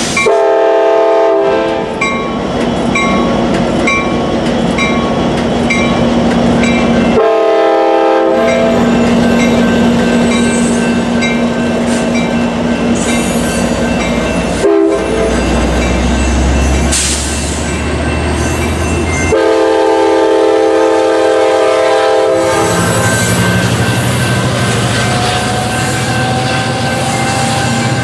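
Amtrak California F59PHI diesel locomotive sounding its horn in three blasts as it departs and passes a grade crossing: two short ones about six seconds apart and a longer one of about three seconds later on, with crossing bells dinging early on. The locomotive's diesel engine rumbles past in the middle, and then the passenger coaches roll by with wheel clatter.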